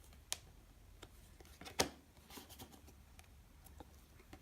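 Faint handling of Donruss Optic trading cards, slid and flipped off a stack: two sharp clicks, one near the start and one about two seconds in, with a few softer ticks and light rustling.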